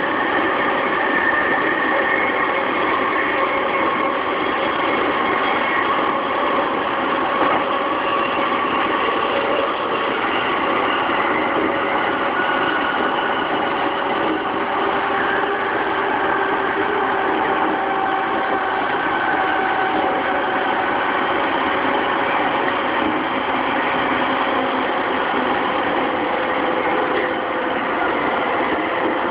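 Running noise heard inside a JR East E233-3000 series electric train's motor car at speed: a steady rumble of wheels on rail with faint traction-motor whine tones from its Hitachi IGBT VVVF inverter drive.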